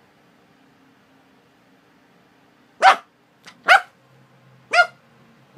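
Rottweiler puppy giving three short, high-pitched barks about a second apart, starting about halfway through, with a faint yip between the first two.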